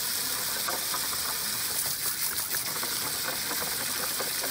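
Steady hiss of water spraying from a toy water table's spout, with small splashes and clicks as a dog bites at the stream.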